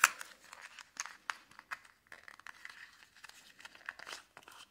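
A small sealed cardboard box for a gel nail polish bottle being opened by hand: scattered crinkles, scrapes and small clicks of the card, a little busier near the end.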